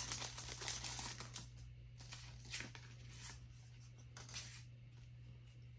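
Faint rustling and crinkling of a clear plastic packaging sleeve as an embossing folder is slid out and handled, loudest in the first second and a half, with a few light scrapes after. A steady low hum runs underneath.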